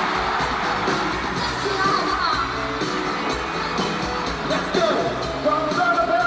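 Live pop music: a sung vocal over band backing with a steady beat.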